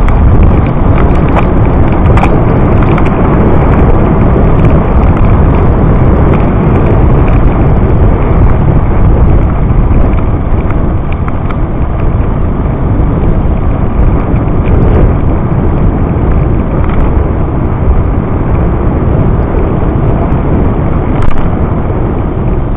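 Loud, steady wind rush buffeting the microphone of a camera carried on a moving bicycle, with a few faint clicks.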